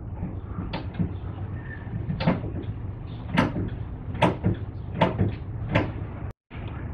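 Brake pedal of a 2010 Dodge Charger pumped repeatedly after new front pads and rotors: about six knocks, less than a second apart, as the caliper pistons are pushed back out against the pads to restore pedal pressure.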